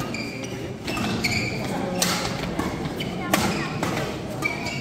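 Badminton doubles rally: sharp racket strikes on the shuttlecock, roughly one a second, the loudest a little past the middle. Short high squeaks from shoes on the court mat come between the strikes.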